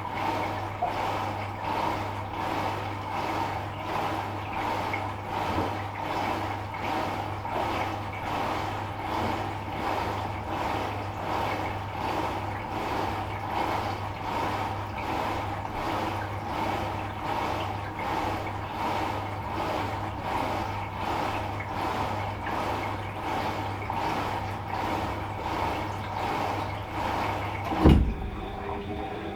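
Washing machine running a wash cycle: a steady low hum under a swishing that swells about once a second as the drum turns. Near the end a single loud thump, after which the swishing stops.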